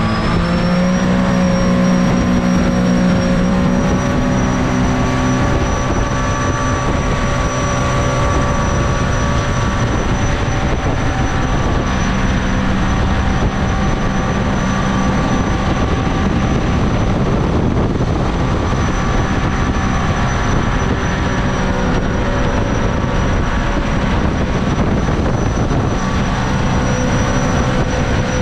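Supercharged Rotax engine of a mini jet boat running at steady high speed, its pitch rising slightly in the first second and then holding, with a thin high whine above it and a steady rush of noise underneath.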